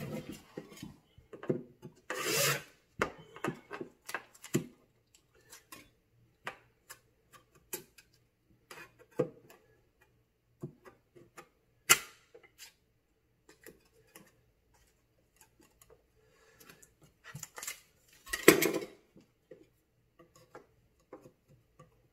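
Blue painter's tape being run off the roll and rubbed down by hand along the bottom edge of a wooden cabinet, with scattered taps and scratches. Two louder, longer bursts come about two seconds in and near the end.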